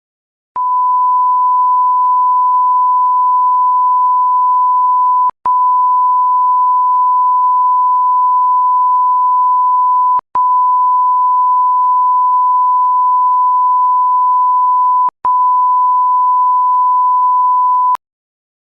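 A steady single-pitch electronic tone near 1 kHz, like an alert or test tone, sounding in four long stretches: three of about five seconds each and a shorter final one, split by brief clicking gaps.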